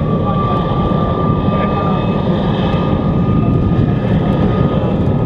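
MiG-15 UTI's jet engine idling on the ground: a steady high whine over a low, even rumble.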